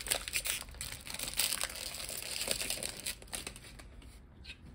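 Foil trading-card booster pack crinkling and crackling as it is handled and pulled open, with a dense run of small crackles that thins out about three and a half seconds in.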